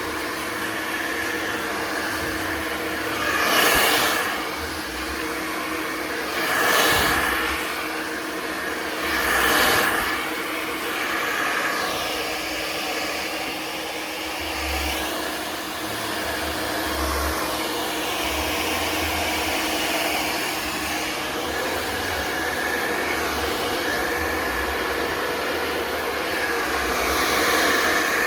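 Hand-held hair dryer blowing steadily, swelling louder three times in the first ten seconds or so.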